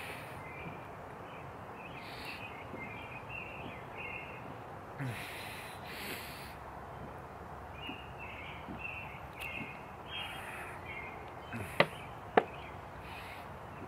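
A 2-litre plastic bottle of carbonated soda being chugged upside down: the drinker gulps while air glugs and hisses into the bottle in short bursts. There are two sharp clicks near the end, with small birds chirping in the background.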